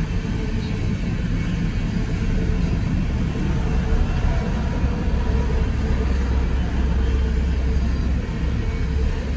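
Freight train of tank cars and covered hopper cars rolling steadily through a grade crossing, a continuous heavy rumble of wheels on rail, heard from inside a car stopped at the crossing.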